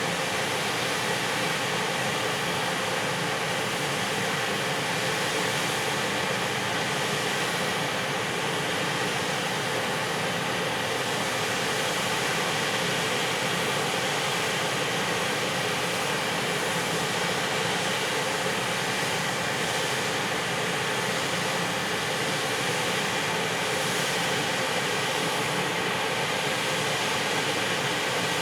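Freight train hauled by an EF510 electric locomotive: a steady mechanical hum with several held tones, no wheel clatter and no change in pitch or loudness.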